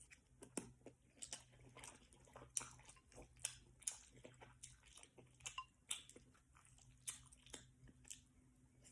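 Faint close-miked chewing of beef lo mein noodles: soft, wet mouth clicks and smacks at an irregular pace.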